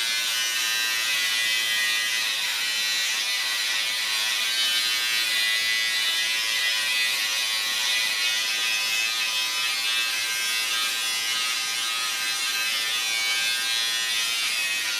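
Electric hair clippers running with a steady buzz as they cut a young boy's short hair.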